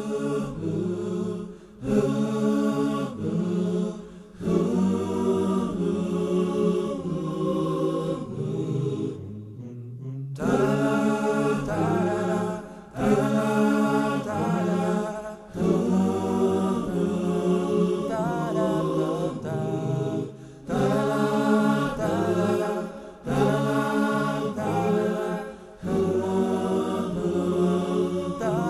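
Unaccompanied vocal chanting, with melodic phrases of a few seconds each and a short break about ten seconds in.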